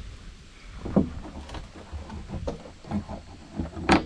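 About half a dozen irregular knocks and clunks on a large black corrugated plastic pipe as it is handled and worked with a saw and a metal hand tool, the loudest near the end.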